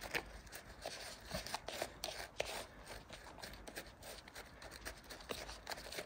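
Faint, irregular scraping and rustling: homemade bird-food mix of seeds and corn being handled and stirred with a stir stick.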